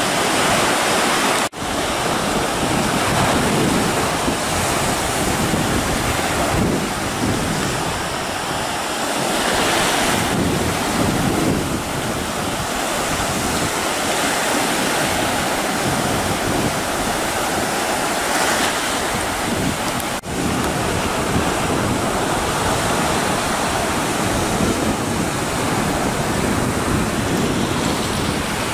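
Surf on a sandy sea beach: small waves breaking and washing up the shore in a steady rush, cutting out for an instant twice.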